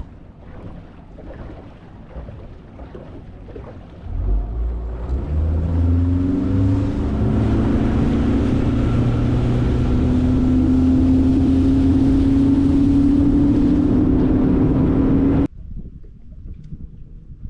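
Boat's outboard motor throttling up, its pitch climbing over a couple of seconds, then running loud and steady at speed; the sound cuts off suddenly near the end.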